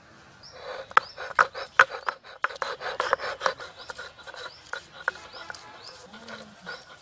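Stone roller (nora) grinding spices on a flat stone grinding slab (shil), stone rasping on stone in repeated back-and-forth strokes. The strokes start about half a second in, are loudest through the next three seconds, and then go on more lightly.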